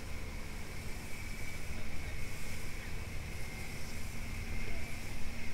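Small dive boat under way: its engine running steadily with a high whine, mixed with wind buffeting the microphone and water rushing past the hull.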